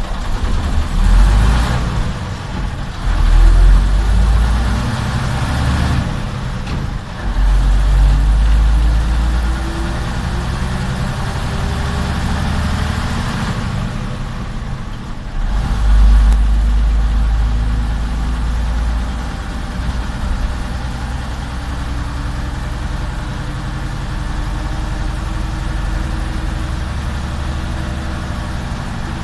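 Jelcz 043 bus's diesel engine heard from inside the cab as the bus pulls away and accelerates. There are several loud low pulls in the first half with short dips between them as gears are changed, then a steadier run with a slowly rising whine.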